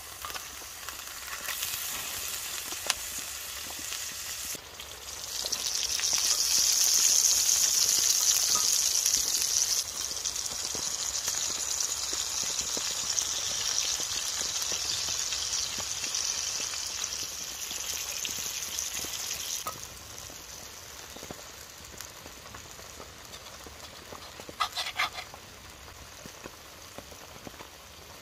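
A meat patty sizzling in a cast-iron skillet over a campfire. The sizzle swells to its loudest a few seconds in and drops away about two-thirds through, with a few clicks near the end.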